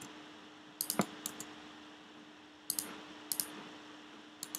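Computer keyboard keys and mouse buttons clicking in a few short runs, about a second in, twice in the second half and again near the end, over a faint steady electrical hum.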